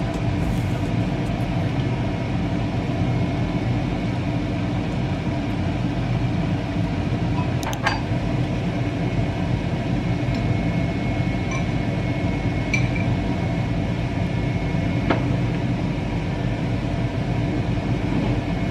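A steady machine hum runs throughout, with a few light clinks of serving utensils on dishes about 8, 13 and 15 seconds in.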